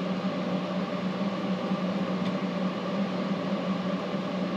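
Steady machine hum with a low droning tone, the background drone of running shop equipment.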